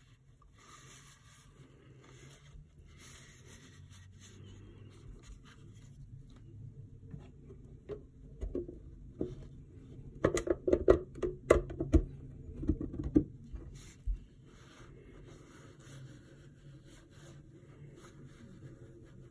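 Hard plastic clicks and knocks as a resin canopy insert and a clear plastic terrarium enclosure are handled and fitted together, with a cluster of sharp taps in the middle. Faint handling rustle otherwise.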